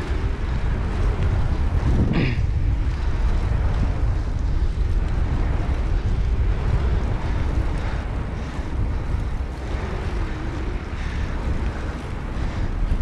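Wind buffeting the microphone of a camera on a moving bicycle, a steady low rumble with the hiss of rolling along a paved path.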